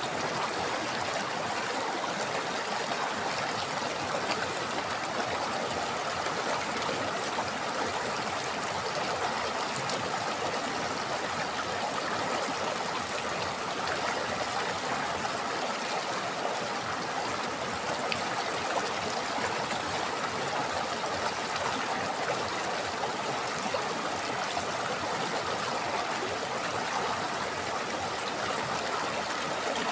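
A river or stream flowing steadily, a continuous rush of water with trickling and gurgling.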